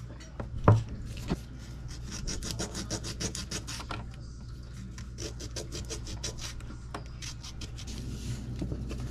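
A carved wooden popper lure body being sanded by hand with a small piece of sandpaper, in runs of rapid back-and-forth rubbing strokes. There is a sharp click about a second in.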